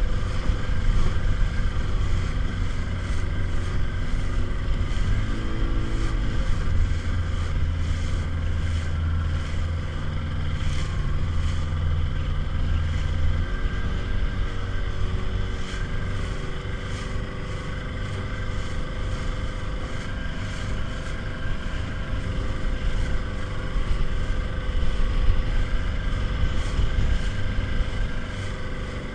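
Small motorboat's outboard engine running under way, its note shifting as the throttle changes about five seconds in and again near halfway, over steady wind and water noise.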